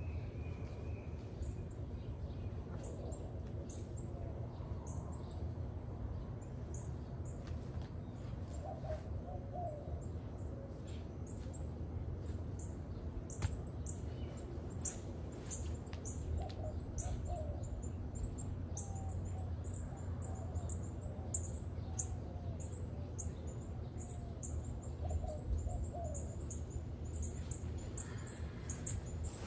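Birds calling: a short low wavering call repeated several times, and quick high chirps throughout, over a steady low hum.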